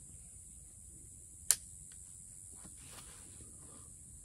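Faint steady high hiss, with one short sharp click about a second and a half in as the Lyman Great Plains muzzleloading rifle is readied to fire.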